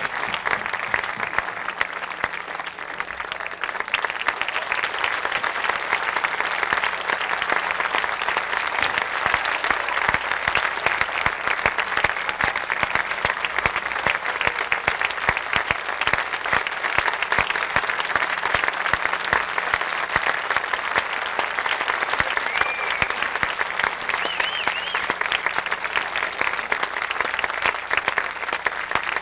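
Theatre audience applauding steadily, dense clapping that holds throughout, with a faint whistle or two near the end.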